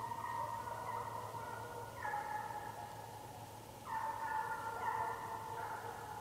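A pack of hunting hounds baying: several long, drawn-out howls at different pitches overlapping, with fresh ones starting about every two seconds.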